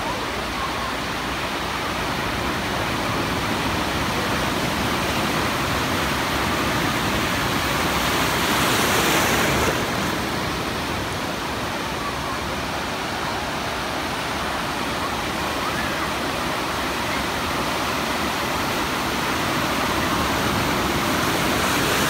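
Ocean surf washing in steadily, swelling louder about eight to ten seconds in as a wave breaks, and again near the end.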